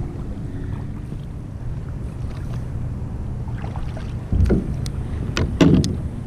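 Steady low rumble of wind and water around a paddle board. From about four seconds in comes a string of knocks and clicks, the loudest a dull thump, as the paddle is laid down on the board's deck.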